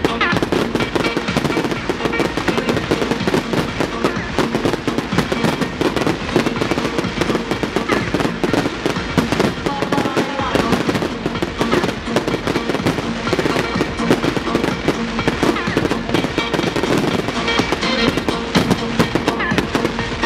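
A fireworks display firing without a break: many bangs and crackles a second from bursting shells and comets, with music playing along underneath.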